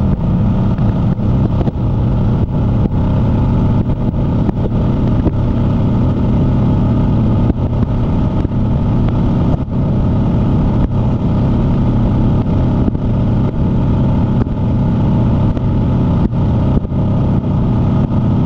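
Motorcycle cruising at highway speed: a steady engine drone mixed with heavy, low wind rush on the microphone.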